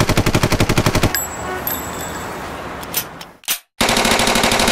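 Two rapid runs of sharp clicks, about a dozen a second, like machine-gun fire. One lasts about a second at the start and the other starts near the end, with steady street noise between them.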